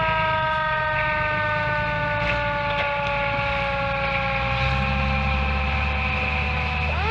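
Fire engine's siren, wound up sharply and then slowly falling in pitch, wound up again sharply near the end. Under it the truck's engine rumbles low, louder in the last few seconds.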